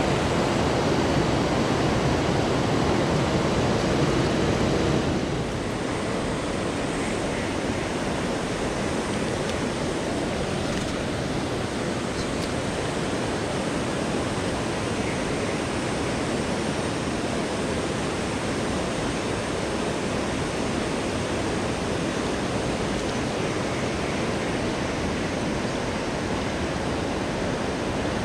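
Steady rushing of a fast-flowing river running over rocks. About five seconds in the sound drops slightly and loses some of its low rumble, then runs on evenly.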